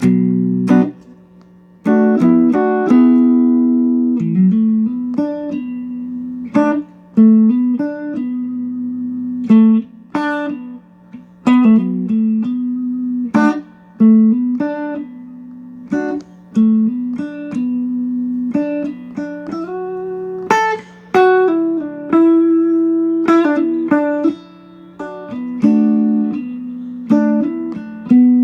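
2015 Mexican-made Fender Stratocaster electric guitar being played: picked melodic phrases with a sharp attack every second or two, over one low note left ringing underneath throughout.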